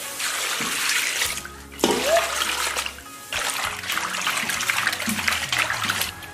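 Water splashing and sloshing as hands rinse blanched wood ear fungus in a basin of water, in bouts with short breaks. Background music runs underneath.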